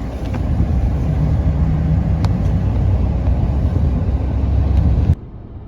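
Steady low rumble of a car in motion. It cuts off abruptly about five seconds in.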